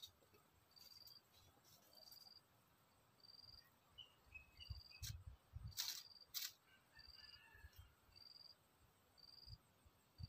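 Faint insect chirping, a short high note repeated about once a second, with two sharp crackles a little past the middle.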